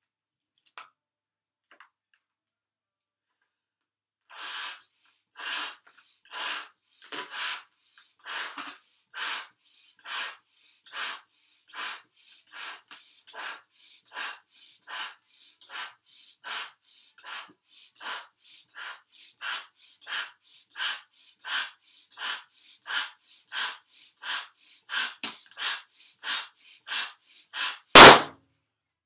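A Qualatex 11-inch Crystal latex balloon being blown up by mouth in steady breaths, about one a second, until it bursts near the end with a single loud, sharp bang.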